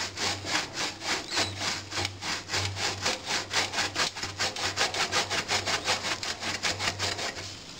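Hard, dry queso costeño being grated on the fine side of a metal box grater: quick, even rasping strokes, about six a second, stopping just before the end.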